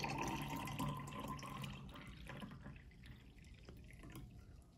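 Chocolate milk poured from a glass measuring cup into a tall glass, a stream of liquid splashing into the drink; it is strongest for the first second or so, then thins out and fades as the pour slows.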